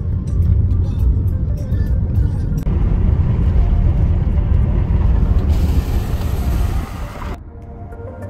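Car interior road noise, a loud steady low rumble, with a hiss added about five seconds in, under background music. Near the end the road noise cuts out and the music carries on alone.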